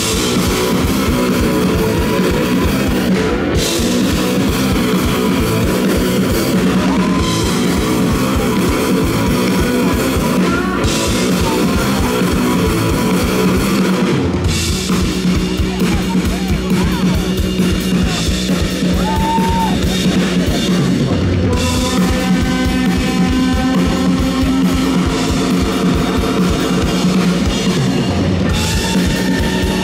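Live rock band playing loudly, with a driving drum kit and electric guitars. There are a few brief breaks in the cymbals along the way.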